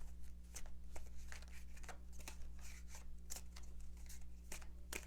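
Tarot cards being shuffled by hand: soft, irregular slaps and riffles of card stock, over a steady low electrical hum.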